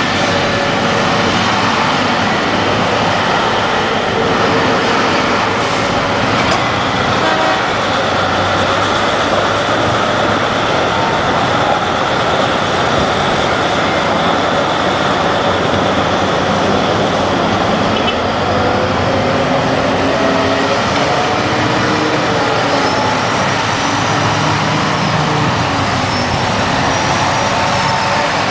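Giant mining haul trucks running on a haul road, a loud, steady diesel engine drone. In the second half a whine rises and falls in pitch several times as the trucks change speed.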